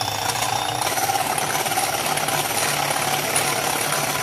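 Electric hand mixer running steadily at speed, its beaters whisking two raw eggs in a glass bowl.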